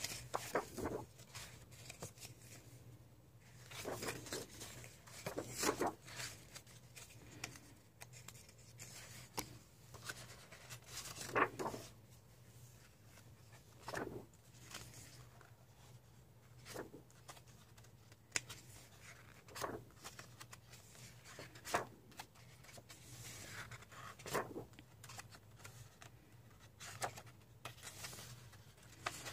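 Pages of a large paperback coloring book being turned by hand: a paper swish and rustle with each page, about every two to three seconds.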